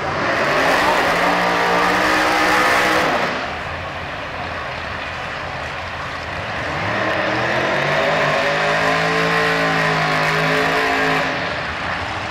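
Camaro x275 drag car's V8 engine revving hard in two long holds, about three seconds and then about five seconds, each climbing in pitch, holding, then dropping back, with a quieter idle between: the burnout on its radial tyres before a run.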